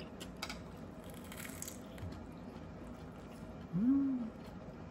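Quiet eating at a table: a few faint clicks of chopsticks and dishes and soft chewing. About four seconds in, a short hummed "mm" rises and falls in pitch.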